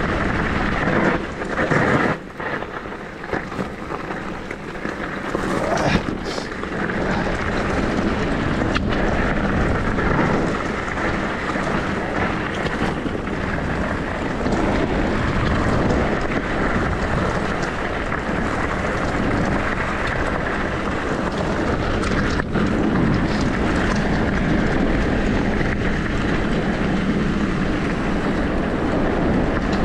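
Continuous riding noise of an e-bike on a downhill run: wind buffeting the microphone over a steady rumble, with a brief quieter stretch about two seconds in.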